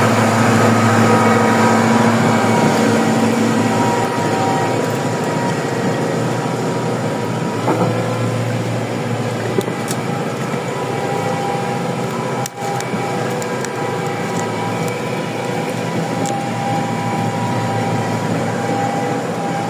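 Tractor engine running steadily under load while hauling a PTO-driven timber semitrailer, with a steady whine over the engine. One lower tone stops about four seconds in, and a single sharp knock comes about twelve seconds in.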